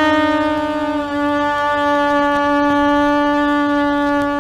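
Conch shell (shankha) blown in one long, steady note with a bright, rich tone.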